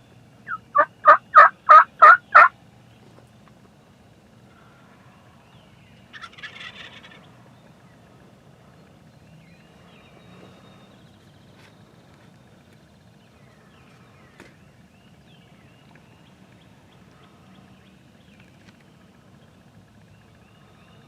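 A quick run of seven loud turkey yelps, evenly spaced. About six seconds in comes a fainter, rougher gobble-like call, then only faint background.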